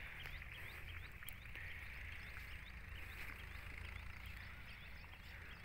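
Faint outdoor ambience: small, short rising chirps repeating several times a second over a steady high hiss, with a low rumble underneath.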